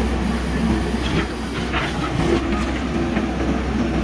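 JCB backhoe loader's diesel engine running steadily under digging load, with a few short knocks from the working machine.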